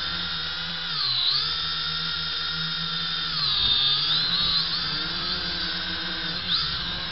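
JJRC H8D quadcopter's motors and propellers whining as it flies. The pitch dips about a second in, drops again around three and a half seconds and climbs back, then slides up and down briefly near the end as the throttle changes.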